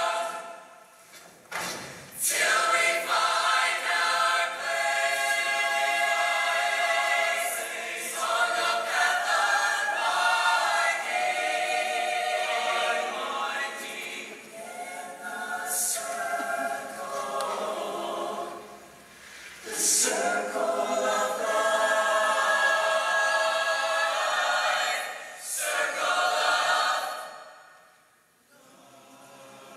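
A large mixed show choir singing in full harmony. The singing breaks off briefly twice, about a second and a half in and about two-thirds of the way through, and dies away near the end.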